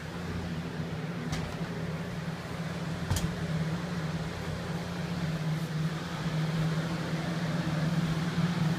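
20-inch Lasko box fan running steadily: an even motor hum under the rush of air from its blades, with a single sharp click about three seconds in.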